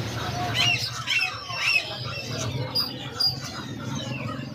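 Caged birds calling: a few short squawks and chirps in the first two seconds, two sharp high notes around three seconds in, and a falling call near the end, over a steady low hum.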